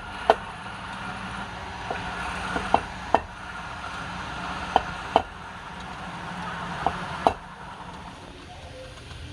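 Steady motor hum, broken by sharp wooden knocks every second or two, several coming in pairs.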